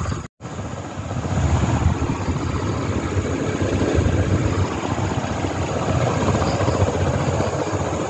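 USHA Excella 1200 mm ceiling fan with a 14-pole motor running at full speed with its blades fitted, heard as a steady rushing of air close to the microphone. The sound cuts out for an instant just after the start.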